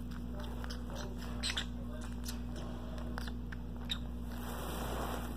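A green-cheeked conure scuffling and moving about on carpet, giving a handful of short, sharp clicks at uneven intervals over a steady low hum.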